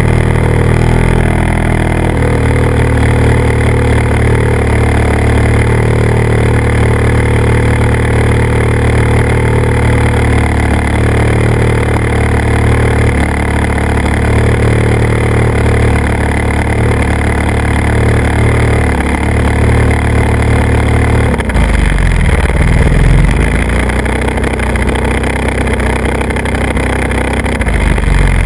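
Motor and propeller of a radio-controlled model aircraft, heard from the camera riding on it, running steadily under power with a rush of air noise. Its note changes suddenly about three-quarters of the way through, as the throttle setting changes.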